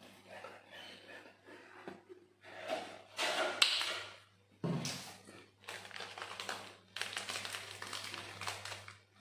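Strawberry sauce squirted from a squeeze bottle onto rolled ice cream, with sputtering noise, the loudest about three seconds in. After it come several more short bursts of noise, all over a steady low hum.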